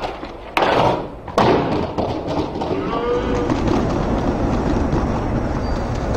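Skateboard hitting the ground twice, about half a second in and again near a second and a half. Then comes the steady noise of skateboard wheels rolling over paving.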